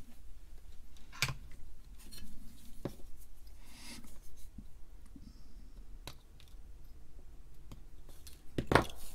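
Side cutters snipping off the excess wire leads of soldered through-hole resistors on the back of a circuit board: a few sharp, separate snips, the loudest near the end.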